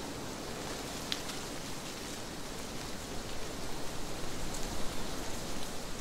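Wind blowing through trees: a steady rustle of leaves that turns gustier and more uneven about halfway through, with a faint click about a second in.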